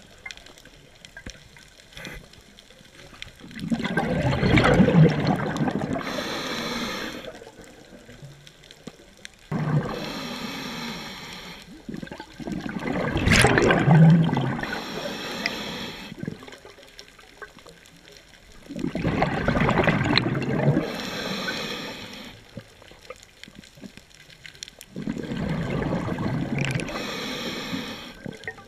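Scuba diver breathing through a regulator underwater: a short hissing inhale through the regulator and a louder, longer rush of exhaled bubbles, the breath cycle repeating about every six to seven seconds, four times.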